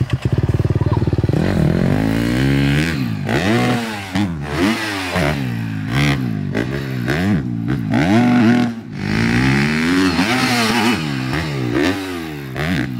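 Dirt bike engine revving up and down repeatedly, the throttle opening and closing so the pitch rises and falls about once a second. A low, rough rumble in the first second or so comes before the revving.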